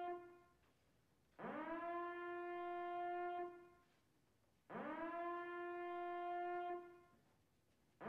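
A repeating horn-like tone. Each blast swoops up quickly in pitch, holds steady for about two seconds and fades, with a new blast about every three seconds.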